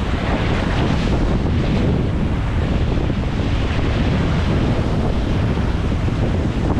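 Wind buffeting the microphone over ocean surf surging and washing against rock ledges, a steady rushing noise with a heavy low rumble.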